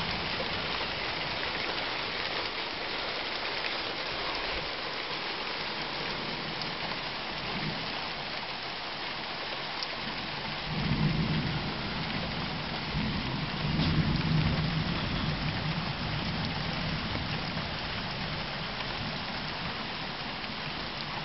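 Heavy rain falling steadily on a trailer, with two low rumbles of thunder, one about halfway through and a longer one a few seconds later.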